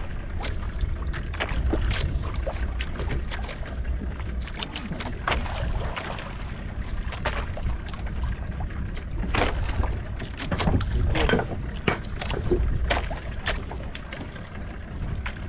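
Wind rumbling on the microphone and water lapping against a small outrigger fishing boat, with scattered light clicks and knocks.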